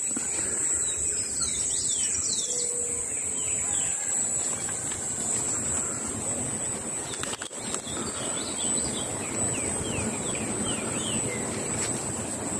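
Forest birds chirping in short quick calls, over a steady high-pitched buzz and a soft even rustle.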